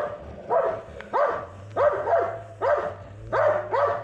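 A dog barking steadily and insistently, about two sharp barks a second.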